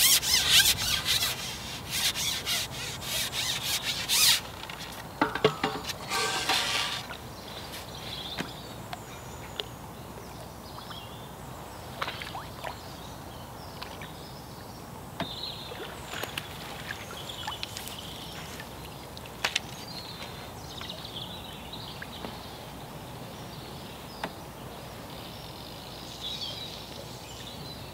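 Carbon fishing pole being shipped back by hand, giving a run of loud rasping, rubbing strokes over the first seven seconds. After that there is a low steady background with scattered light clicks of tackle being handled.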